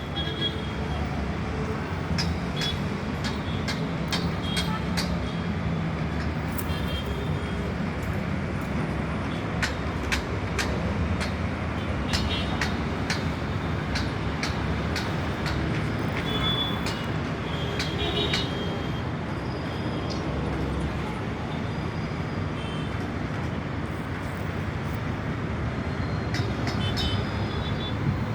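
Night construction work and road traffic: a steady low engine rumble, with frequent sharp knocks and clanks scattered through it and a few short, high metallic rings.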